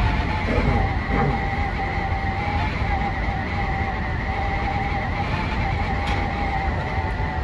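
Sotetsu 20000 series electric train running at speed, heard from the driver's cab: a steady rumble of wheels on rail with a constant whine over it and a short pitch glide about a second in.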